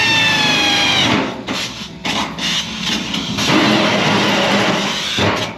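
Pneumatic air drill cutting into a sheet-steel fuel tank. A high whine drops in pitch as the cutter bites, then about four seconds of rough grinding and hiss that stop shortly before the end.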